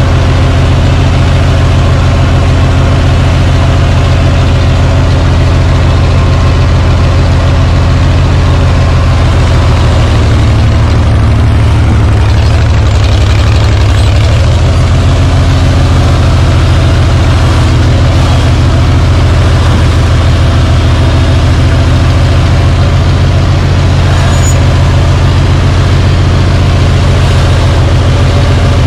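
Oliver 1850 tractor's six-cylinder engine running steadily and loudly as the tractor is driven, its note shifting slightly about a third of the way in.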